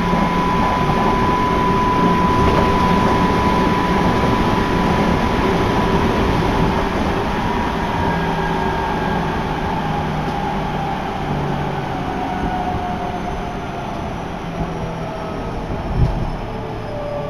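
Electric commuter train running, heard from aboard: a steady rumble with a motor whine that holds its pitch, then slowly falls from about halfway through as the train slows. There is a single thump near the end.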